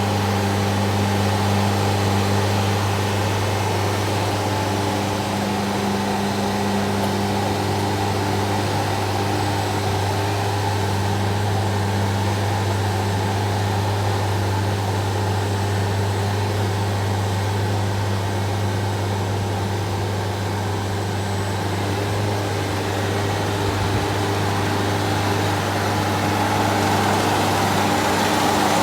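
Concrete floor grinding machine running steadily, with an even low hum and little change in level.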